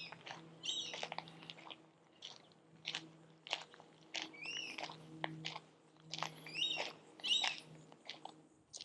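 Birds calling from the trees in short chirps, with a few clustered calls about a second in and again around four and a half, six and a half and seven seconds in. Footsteps crunch along a woodland trail beneath them, over a faint steady hum.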